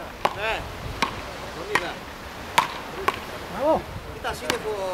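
Wooden beach rackets hitting a small ball back and forth in a rally: sharp cracks, a little under a second apart.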